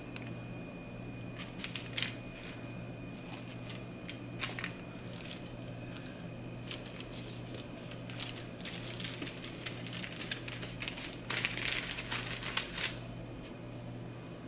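Parchment paper rustling and crinkling under hands as a sheet of puff pastry is laid down and pressed flat, with scattered light taps and a denser burst of crinkling near the end. A steady low hum sits underneath.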